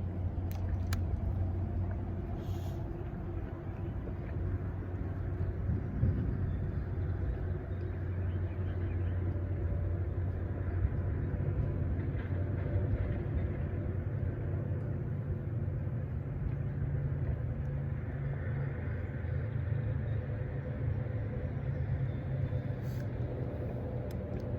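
Steady low engine rumble, its pitch stepping up about eleven seconds in and then holding steady.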